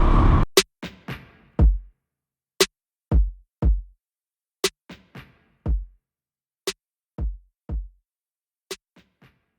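Vehicle noise cuts off abruptly about half a second in. A sparse electronic drum-machine beat follows: deep kick drums that drop in pitch, and sharp snare-like hits with silence between them.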